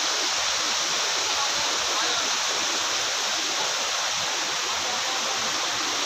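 Shallow mountain stream rushing over rocks: a steady, unbroken rush of water.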